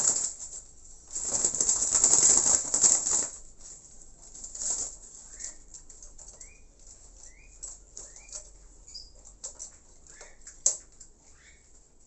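Spotted dove flapping its wings hard inside a wire cage as a hand grabs it: a brief flurry at the start and a longer one of about two seconds. After that come quieter scuffs and clicks, one sharp click near the end, and a few short, faint rising chirps.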